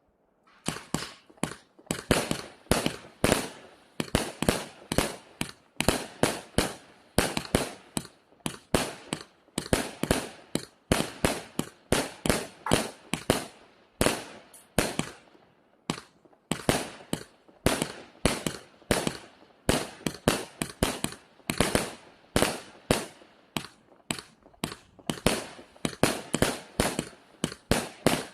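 A 200-shot assorted firework cake firing: a quick, steady string of sharp bangs, about three a second, that starts about half a second in and keeps on without a break.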